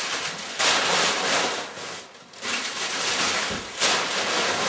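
Crumpled packing paper rustling and crackling as it is pushed down into a cardboard picture carton, in two long spells with a short lull about two seconds in.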